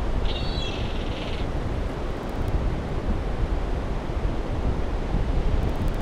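Wind buffeting a GoPro's microphone over the steady wash of ocean surf, a dense low rumble throughout. Near the start a brief high-pitched squeal lasts about a second.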